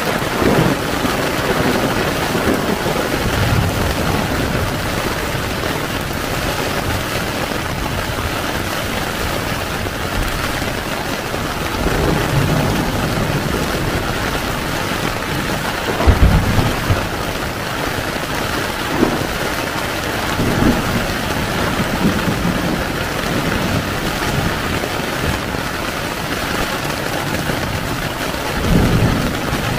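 Heavy rain falling steadily on a tent, heard from inside, with a few low rumbles, the loudest about 16 seconds in and another near the end.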